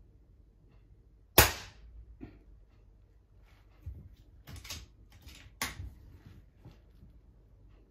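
One shot from a moderated .177 AirMaks Katran PCP air rifle about a second and a half in: a single sharp crack that dies away quickly. From about four seconds on, the action is cycled for the next pellet with a run of clicks and rattles, the sharpest near the end.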